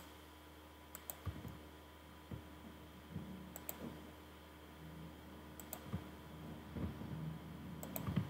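Computer mouse buttons clicking, mostly in quick pairs every second or two, over a faint steady hum, as a CAD model is rotated on screen.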